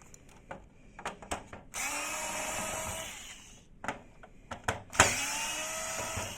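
Electric screwdriver running in two short spells, each about one and a half to two seconds long, removing the two screws that hold the printer's separation module, with small plastic clicks before them.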